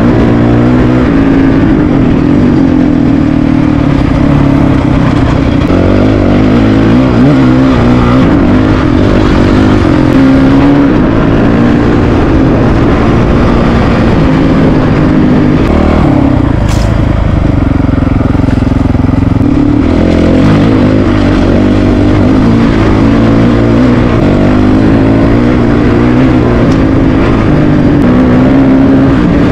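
Single-cylinder Honda dual-sport motorcycle engine heard from on board, pulling along a dirt trail with the revs rising and falling with the throttle. About two-thirds of the way through it eases off to a lower note for a few seconds, then picks up again.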